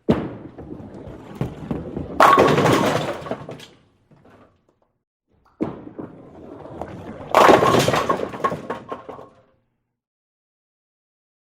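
Bowling ball set down onto the lane and rolling, then crashing into the pins, twice. Each time the rolling rumble lasts about two seconds before the pin crash, which is the loudest part and clatters away over a second or so.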